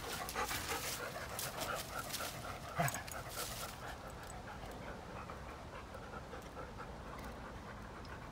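Labrador dogs panting hard and fast while tugging and chewing a stick, with one brief louder sound about three seconds in. The panting eases off after about four seconds.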